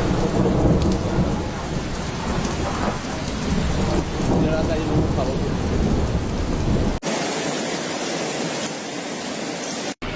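Heavy rain pouring down under a low, uneven rumble. About seven seconds in, the sound cuts abruptly to a thinner, steady rain hiss with no rumble.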